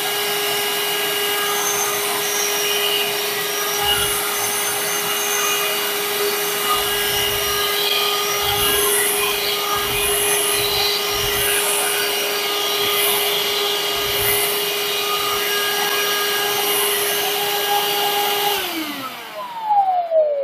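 Parkside 20V cordless handheld vacuum cleaner running steadily while picking up water in a wet test, with a few low knocks as the nozzle is worked. It is switched off near the end, and its motor's pitch falls as it winds down.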